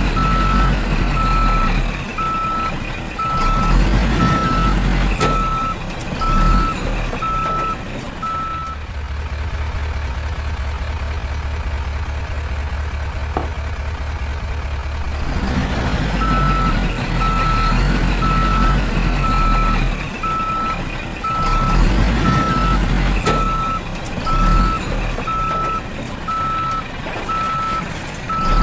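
Reversing alarm on a miniature construction vehicle beeping at a steady pace, with its motor running underneath. The beeping stops about eight seconds in, leaving a steady low motor hum, and starts again about halfway through.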